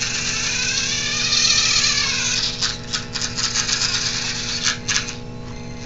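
Small electric drive motor and gearing of a robot RC car whining, the pitch rising and falling as it speeds up and slows. Then comes a couple of seconds of rapid stuttering clicks and rattles as it starts and stops, and it goes quieter near the end.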